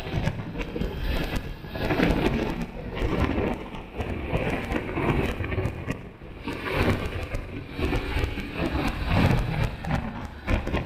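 Wind rushing over the microphone of a camera on the roof of a moving car, mixed with road and traffic noise; the loudness swells and dips unevenly.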